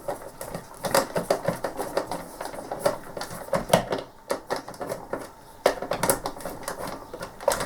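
Irregular clicks and taps of a plastic joystick base being handled while its screws are taken out.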